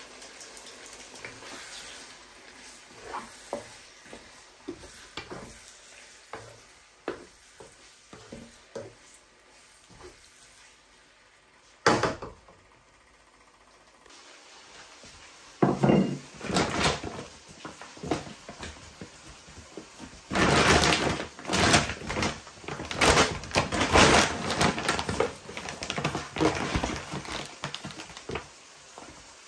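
Cooking sounds from a wok of chicken curry: small scattered pops and ticks as it simmers, one sharp knock about halfway, then a wooden spoon stirring and scraping through the food against the pan with loud, irregular clatter.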